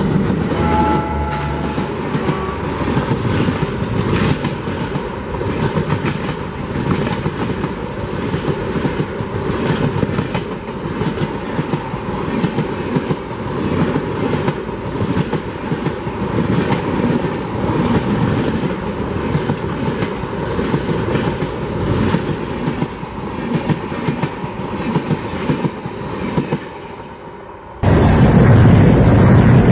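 Passenger express train running past at speed: a steady rumble of coaches with clickety-clack of wheels over the rail joints. A brief horn note from the ALCO WDM3A diesel locomotive sounds near the start. Near the end the rumble fades as the train passes, then a sudden louder rumble with wind on the microphone, close beside the wheels.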